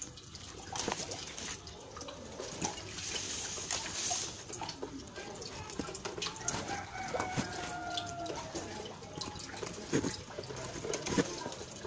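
Papaya leaves and stalks rustling and crackling as they are handled and picked, with scattered sharp clicks. A rooster crows once, faintly, about six seconds in.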